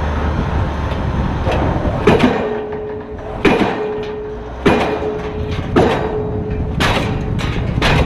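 Diesel pile hammer firing on a steel H-beam pile, a sharp blow about once a second starting about two seconds in, each blow followed by a ringing steel tone. A low rumble comes before the first blow.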